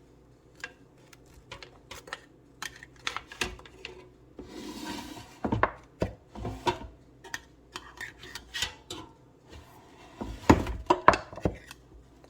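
Baking pans clattering and knocking as they are handled and set down, a run of separate knocks and clicks. A short rubbing scrape comes about five seconds in, and the loudest knocks come near the end.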